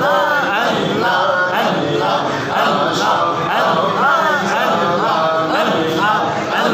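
Islamic dhikr (zikr): a man chants repeated devotional phrases into a microphone, amplified over a sound system, with a group of men chanting along.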